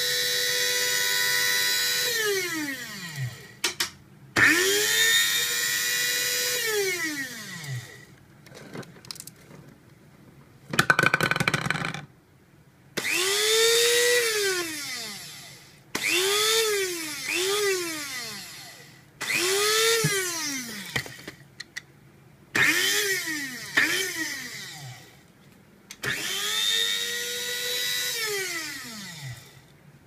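KRUPS blade coffee grinder's electric motor running empty, switched on and off about eight times, some longer runs and some short pulses. Each time it spins up to a steady high whine, then winds down with falling pitch as it coasts to a stop. A short clattering burst comes about halfway through.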